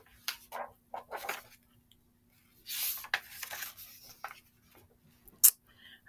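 A paperback picture book being opened and its pages handled: several short rustles, a longer paper rustle about halfway through, and a sharp click near the end.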